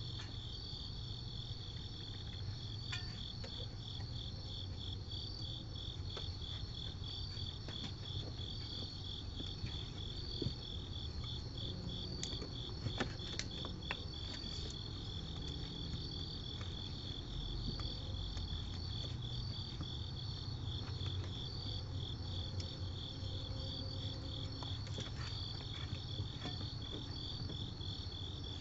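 Crickets chirping at night: a steady, evenly pulsing high chirp, with a second, higher insect call alongside it. A few faint clicks come around the middle.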